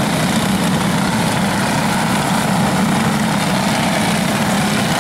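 Racing kart engines, Briggs & Stratton Animal single-cylinder four-strokes, running together as a field of karts laps past, a steady buzz that wavers only slightly in pitch.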